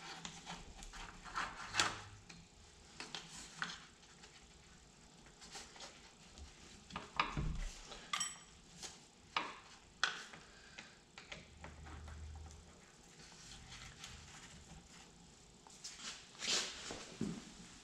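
Screwdriver and hands working a hose clamp and hose on a lawn tractor's cooling system: faint, scattered clicks, scrapes and knocks of hand-tool work, with a short metallic ping about eight seconds in.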